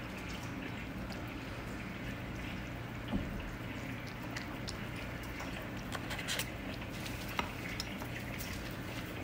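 A cat licking and chewing a piece of steak: small wet smacking clicks, a few louder ones about three seconds in and between six and eight seconds in.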